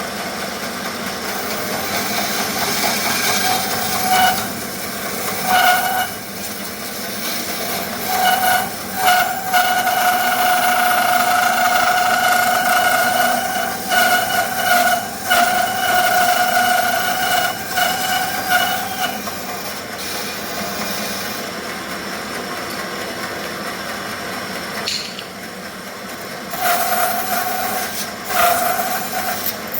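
Band saw running and cutting through thick wenge hardwood, the blade's pitched whine coming and going in stretches as the wood is fed, longest through the middle, over the machine's steady running noise.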